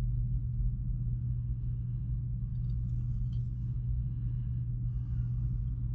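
Steady low background hum, with a few faint light ticks partway through.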